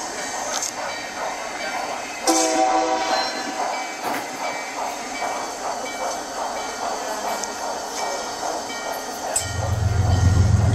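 Model passenger train running past on its track with a steady rolling rail sound and occasional clicks; about two seconds in a horn sounds once, briefly. Near the end a loud low hum comes in.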